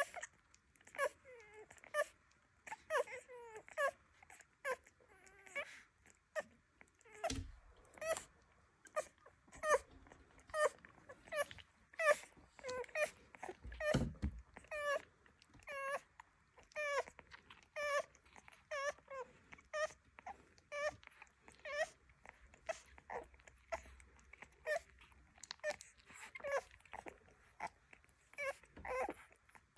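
Newborn Rhodesian ridgeback puppies squeaking and whimpering while nursing from their mother, in a steady string of short high calls about once or twice a second.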